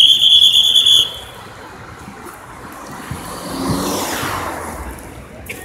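A shrill whistle blast held for about a second. Then a vehicle swells past in the traffic and fades away.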